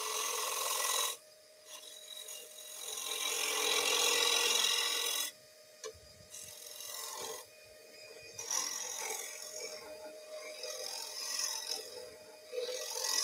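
Skew chisel cutting the face of a wooden bowl blank spinning on a lathe: a hissing scrape of the edge on the wood, in several passes with short pauses between, over the steady hum of the running lathe.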